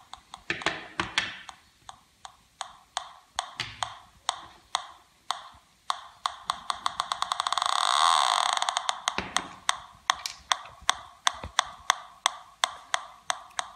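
Homemade Pi Polones pulse-induction metal detector ticking through its speaker about two to three times a second, with a buzzing tone swelling up and fading away in the middle as it responds to metal. The detector is working with an LF357 op-amp fitted.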